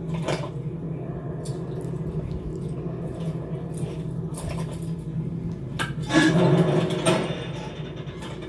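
Film sound effects with no music or dialogue: a steady low mechanical hum under scattered clicks and clanks, with a louder rattling clatter about six seconds in and a sharp hit at the very end.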